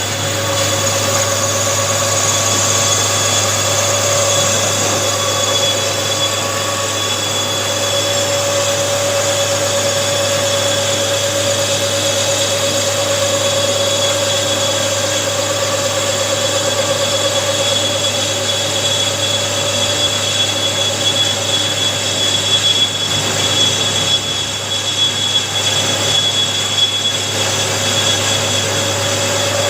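A machine running steadily for the whole stretch, with a constant whine.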